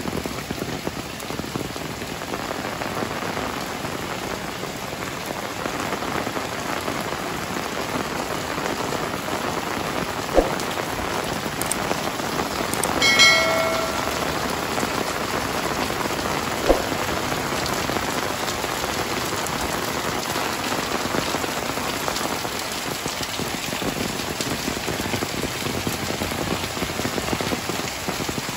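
Heavy rain falling steadily on a wet concrete lane, tiled roofs and foliage. Two sharp knocks come about ten and seventeen seconds in, and a short pitched tone sounds about thirteen seconds in.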